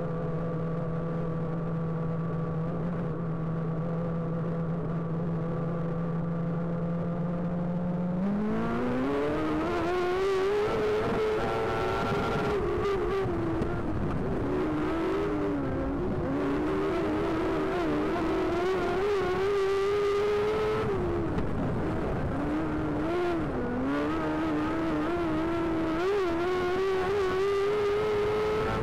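Speedway race car engine holding a steady low note for about eight seconds, then revving up sharply and running at high revs. The revs dip briefly and climb again several times.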